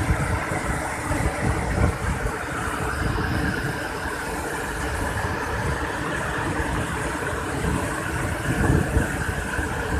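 Water gushing through a dam's open spillway gates and churning into the flooded river below, a steady loud rush with a deep rumble underneath. The gates have been opened to release floodwater after heavy rain.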